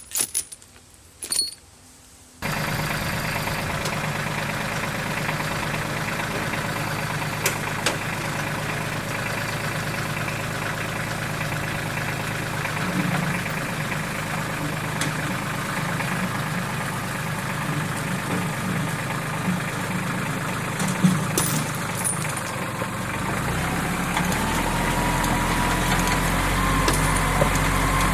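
A few clicks, then a skid steer's engine comes in abruptly about two seconds in and runs steadily, growing deeper and louder near the end.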